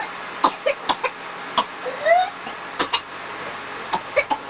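Whooping cough (pertussis) coughing fit: runs of short, sharp coughs, broken about two seconds in by a high whooping intake of breath that rises in pitch, then more coughs near the end. The rising whoop after a run of coughs is the typical sign of pertussis.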